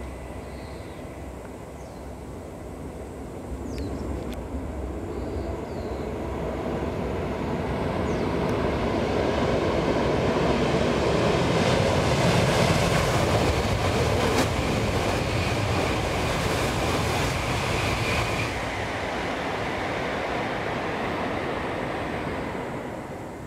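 Tohoku Shinkansen bullet train passing at high speed: a rushing noise of air and wheels on rail that builds over several seconds, peaks, then fades away.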